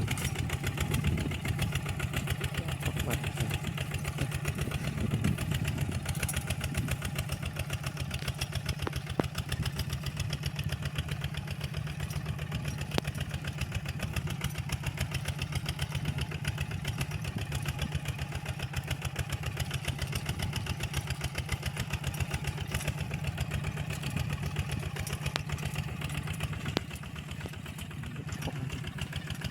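Walking tractor engine running steadily under ploughing load, with a rapid, even firing beat that dips a little in loudness near the end.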